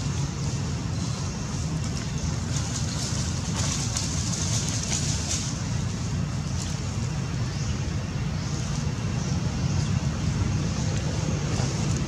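Steady low rumble with an even hiss over it, the hiss swelling briefly a few seconds in.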